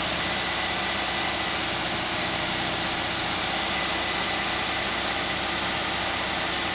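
Massey Ferguson 385 tractor's four-cylinder diesel engine running steadily while it powers the hydraulic tipper raising a loaded soil trolley.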